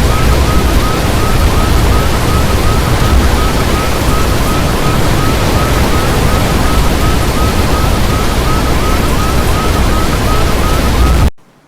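Strong wind buffeting the microphone with a heavy low rumble, while a short high chirp repeats rapidly and evenly underneath. The sound cuts off abruptly near the end.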